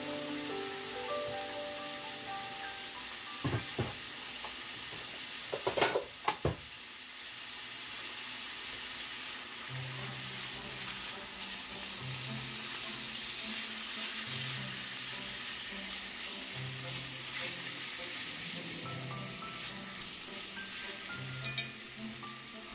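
Hot dogs sizzling in oil in a cast iron skillet, with a few sharp clicks and knocks from the pan as they are turned: once about three and a half seconds in, a cluster around six seconds, and again near the end.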